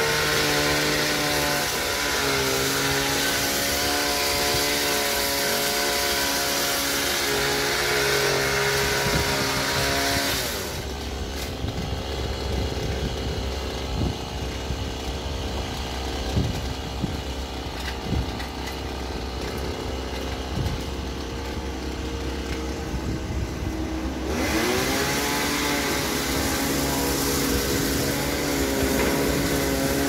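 Small petrol engine of a hedge trimmer running fast for about ten seconds, then dropping to a low idle. About 24 seconds in it revs back up with a rising pitch.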